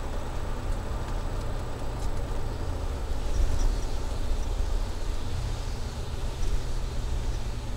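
Ford van's 351 Windsor V8 running through a Flowmaster Delta Flow 50 series single-in, dual-out muffler, heard inside the cabin as a steady deep exhaust drone. It swells slightly a few seconds in.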